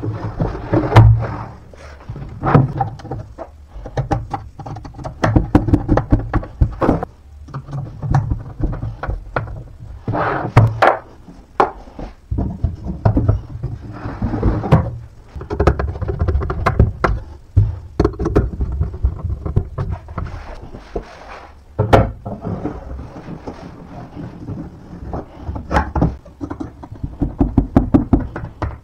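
Irregular knocks and thumps of flat-pack drawer panels being handled and fitted together during drawer assembly, with rubbing handling noise between the strikes and one sharper knock about three-quarters of the way through.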